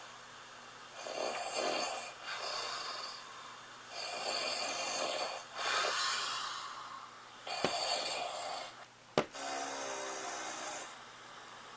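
A sleeping man snoring in a repeating rhythm, about six rasping snores of around a second each, some coming in close pairs, recorded overnight by a snore-tracking phone app; he sleeps with his mouth taped shut. Two sharp clicks cut in during the second half.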